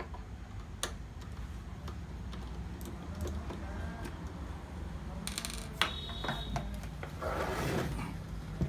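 Small metallic clicks and handling noises, with a short ringing clink about six seconds in and a brief scraping rustle near the end, as tools and small parts are handled during computer disassembly.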